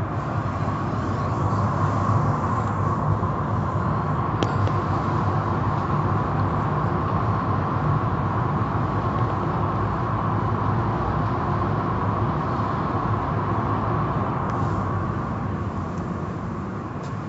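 Automatic tunnel car wash running: a steady noise of spinning cloth brushes and water spray, heard through the viewing-window glass.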